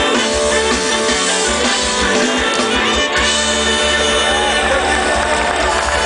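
A live band playing loudly through a concert PA, with guitar prominent.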